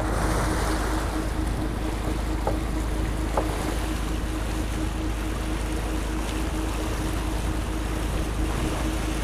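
Fishing boat's engine running steadily under wind and sea noise, with a low rumble and one steady hum. Two light knocks sound a few seconds in.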